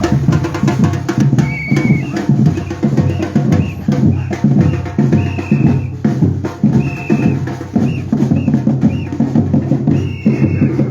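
Batucada drumming: a group of bass drums and snares playing a fast, steady rhythm, with short high tones sounding over it every second or so.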